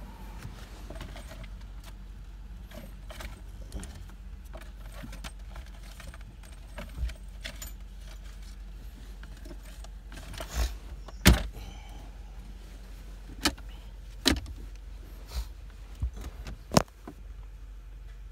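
Handling noise from a phone rubbing and knocking against a fabric work jacket: scattered clicks and thumps, the loudest about eleven seconds in. A steady low hum runs underneath.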